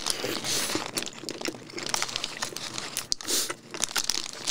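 Paper burger wrapper crinkling and rustling in the hands while a hamburger is bitten into and chewed close to the microphone, in many irregular crackles.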